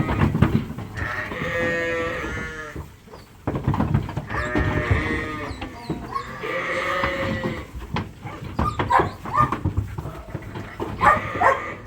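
Dorset cross ewes bleating as they are loaded onto a livestock trailer: several long calls, one after another, with scattered knocks in between, thickest in the last few seconds.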